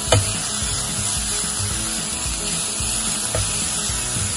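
Chopped onions and ground spices sizzling in a nonstick frying pan while being stirred and scraped with a silicone spatula. There is a sharp knock at the start and a lighter one about three and a half seconds in.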